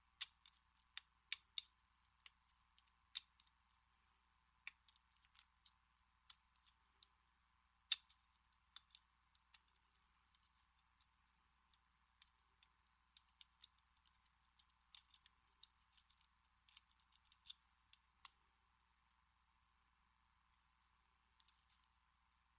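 Faint, irregular metallic clicks of a lock pick and tension wrench working the pin tumblers of a vintage American Series 200 padlock, with a pause of a couple of seconds near the end.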